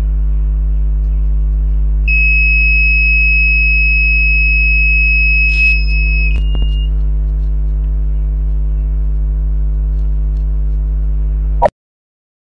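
Steady electrical hum on the recording. About two seconds in, a steady high-pitched electronic beep joins it and holds for about four seconds, then a short, slightly higher beep follows. Near the end the sound cuts off with a click.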